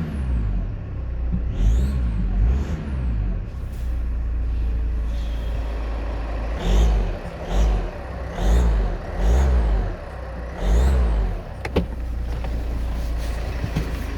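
Land Rover Freelander 2 engine revved in a series of short blips, with a high whistle that rises and falls in pitch with each rev. This is the unwanted whistle being tracked down.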